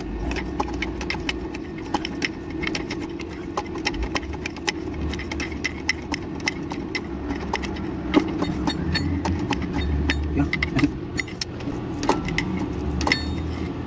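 Wheel loader's diesel engine running steadily at idle, with a dense run of metallic clicks and clinks from hand tools turning the parking brake adjuster.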